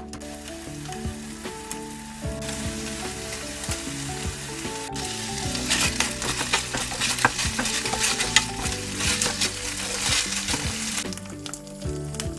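Seasoned ground pork frying in a pan, sizzling steadily. From about six seconds in to near the end it grows louder as a spatula stirs and scrapes the meat around the pan.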